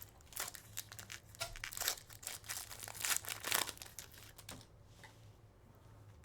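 A trading-card pack's plastic wrapper crinkling and tearing as it is opened, in quick crackles that die down for the last two seconds or so.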